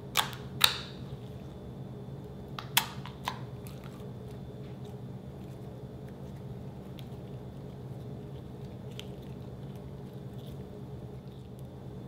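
White slime being squished, folded and squeezed by hands. It gives a few sharp pops in the first three and a half seconds, then quieter small clicks, over a steady low hum.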